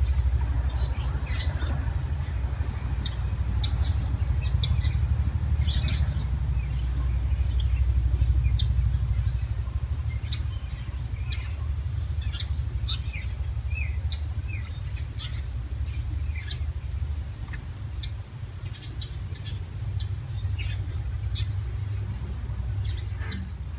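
Small birds chirping in short, scattered calls over a steady low rumble that eases after about ten seconds.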